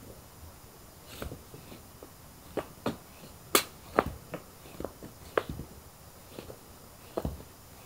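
An irregular series of sharp clicks and light taps, about fifteen, the sharpest about three and a half seconds in.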